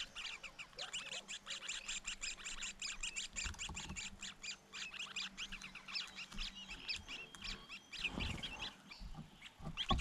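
Leiothrix nestlings begging in the nest, a fast, dense series of short high calls. A low rumble comes about eight seconds in.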